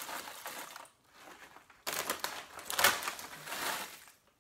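Foil chip bag crinkling as it is shaken upside down, with the last ghost pepper chips spilling out onto a towel. A short burst of rustling, a pause of about a second, then a longer, louder stretch of crinkling and rattling.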